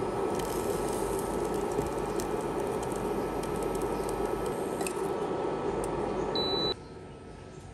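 Steady rushing kitchen noise from a hob, with a few faint ticks, while a slice of bread toasts in a dry nonstick pan. It cuts off abruptly about seven seconds in, leaving a much quieter hum.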